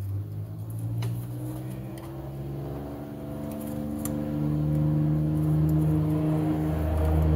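An engine running with a steady low hum that grows louder about four seconds in, plus a few light clicks of a screwdriver on the carburetor's cover screws.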